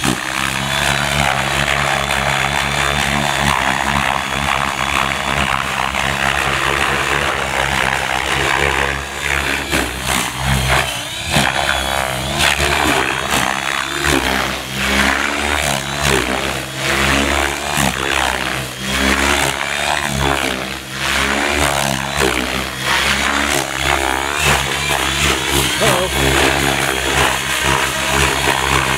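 Gaui X7 700-size RC helicopter flying hard 3D aerobatics at high head speed: a steady rotor and drivetrain hum with repeated swells and sharp surges of blade noise as the rotor is loaded and unloaded.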